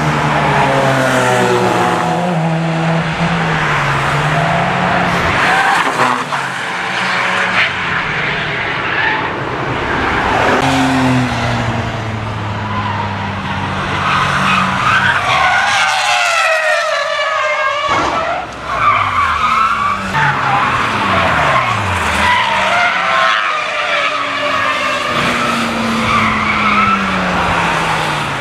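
Cars driven hard on a race track, engines revving up and falling in pitch as they pass. Tyres squeal in wavering screeches as cars slide through corners, loudest about halfway through.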